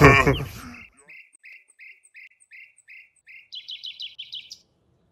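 A bird singing: a row of short, evenly spaced chirps, about three a second, then a quicker, higher run of notes that cuts off suddenly.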